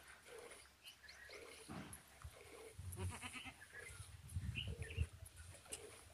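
Goats bleating in short scattered calls, with low thumps and knocks around the middle, the loudest a thump near the end.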